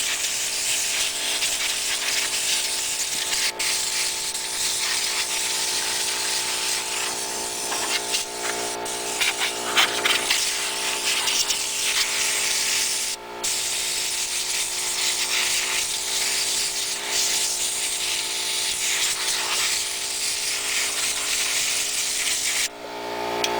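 Compressed air blasting dust out of a refrigerator's condenser coils: a steady, loud hiss over the hum of a running air compressor. The air cuts off near the end, leaving the compressor running as it builds pressure back up.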